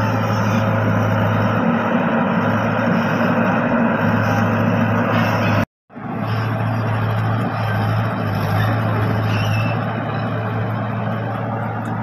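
Diesel engine of a JG90Z wheeled excavator running steadily under working load, a constant low drone. The sound cuts out completely for a moment about six seconds in, then resumes.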